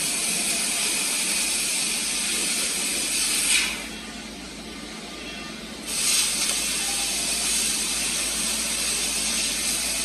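Robotic welding arc hissing steadily for about three and a half seconds, stopping, then striking again about six seconds in and hissing on.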